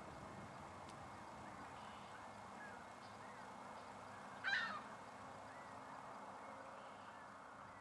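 Faint steady outdoor background hum, broken by one short harsh honking bird call about four and a half seconds in, with a few faint chirps.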